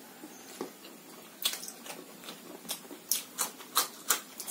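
Close-up chewing of crunchy raw bitter gourd: a string of short, sharp, crisp crunches and mouth smacks, about seven or eight of them, coming more often in the second half.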